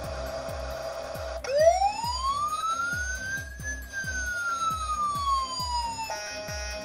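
Toy fire engine's electronic siren: a single wail that starts about one and a half seconds in, rises in one long sweep and then falls slowly, giving way near the end to a steady electronic tone. Background music with a steady beat plays underneath.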